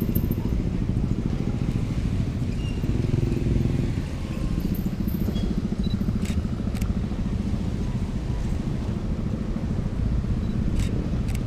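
Street traffic dominated by idling and passing motorcycles, a steady low engine rumble. Over it come sharp camera shutter clicks, two about half a second apart a little past the middle and two more near the end.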